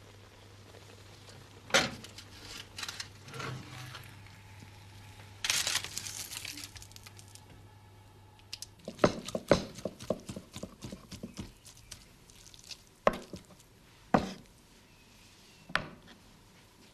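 Kitchen cookware and utensils knocking and clattering in separate sharp knocks. There is a short hissing rush about a third of the way in and a busier run of clatter just past the middle.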